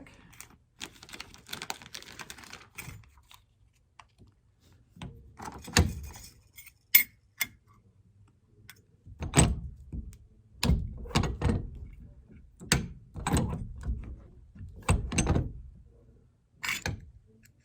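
MultiMaker button press being worked by hand: metal button parts clinking into the dies and the press mechanism giving a series of sharp clicks and thunks, the loudest bunched in the second half.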